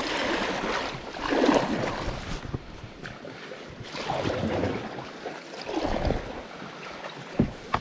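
Paddle strokes swishing in the water as a Venture Ranger 162 canoe is paddled with kayak paddles through water plants and overhanging willow branches. The swishes come every second or two, leaves brush past, and there is one sharp knock near the end.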